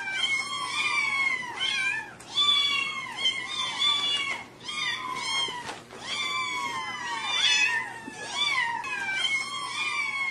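Many kittens meowing at once: a continuous chorus of high, overlapping meows, each falling in pitch.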